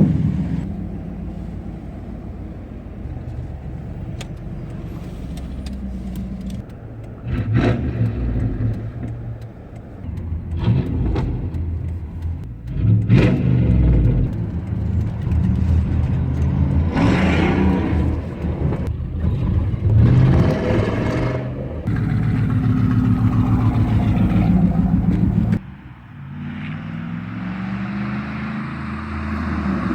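1996 Pontiac Trans Am's LT1 V8 exhaust running at idle, blipped up in several short revs that rise and fall. The sound drops off abruptly near the end and picks up again.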